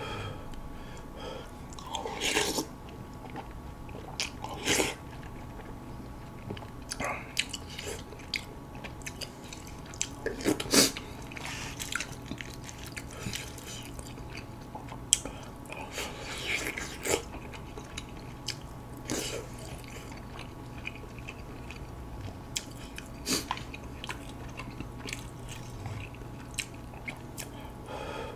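Close-up eating sounds: a person chewing and biting mouthfuls of army-stew noodles, with short sharp clicks and wet smacks every second or two.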